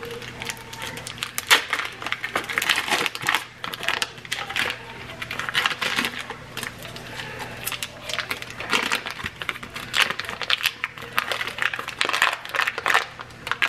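Foil wrapper of a block of cream cheese being peeled open and crumpled by hand: dense, irregular crinkling and crackling.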